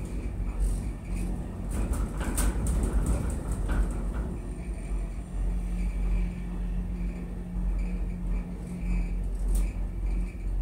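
Funitel gondola cabin running up the line, a steady low rumble and hum in the cabin. A cluster of clicks and rattles comes about two to four seconds in, and a single click comes near the end.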